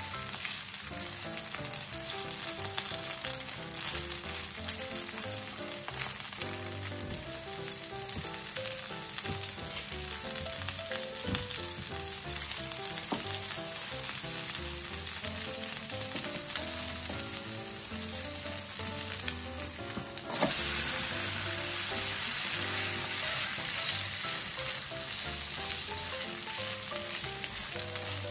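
Okonomiyaki batter of shredded cabbage and corn frying on a hot griddle: a steady sizzle with occasional sharp ticks. About 20 seconds in the sizzle grows louder and brighter.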